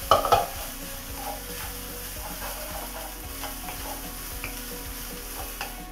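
A wooden spatula stirs and scrapes fried rice with cauliflower, spinach and egg around a non-stick wok while the food sizzles steadily over the gas flame. There is a louder clatter of spatula on pan right at the start, then lighter scrapes and taps.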